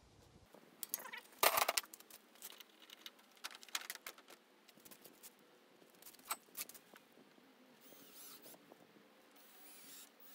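Scattered clicks and knocks of hand tools and small parts being handled at a tractor's dash, with a louder clatter about a second and a half in.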